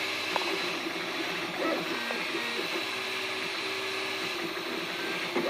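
3D printer printing a plastic part: its stepper motors sing in short steady tones that jump in pitch every fraction of a second as the print head changes direction, over a steady hiss.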